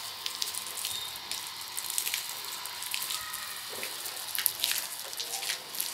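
Water from a garden hose spraying onto solar panels under pump pressure: a steady hiss with a patter of drops splashing on the panel surface.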